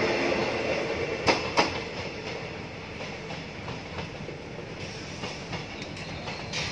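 Railway passenger coaches of an empty train passing, their wheels clacking over the rail joints, then the sound fades to a low rumble as the train pulls away.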